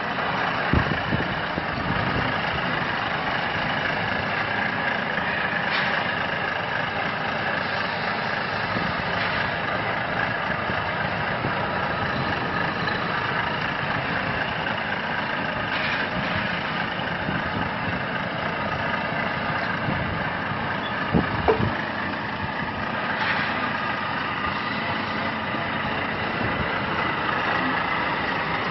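Milk truck's engine idling steadily, with a few short knocks, one about a second in and a couple near 21 seconds.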